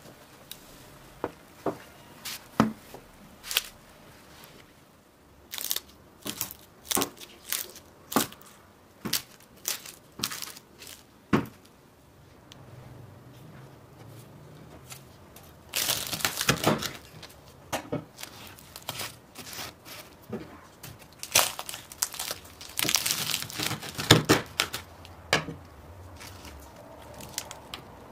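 Crisp, flaky baked pastry crust cracking and tearing as it is broken apart by hand, in two crackly spells, one a little past halfway and one later. Before that comes a run of separate sharp clicks and taps.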